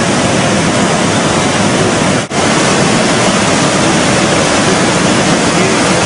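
Swollen, flooded river rushing loudly in a steady roar of water, with a brief break in the sound about two seconds in.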